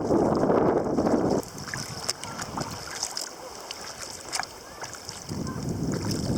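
Wind buffeting the microphone in two loud gusts, one at the start and one from about five seconds in, with light water splashes and drips around a sea kayak in the quieter stretch between.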